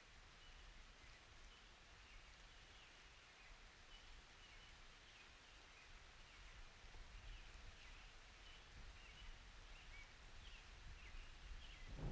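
Near silence: faint outdoor ambience with soft, scattered high chirps over a low background rumble.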